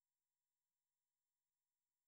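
Near silence: an essentially soundless track with no events.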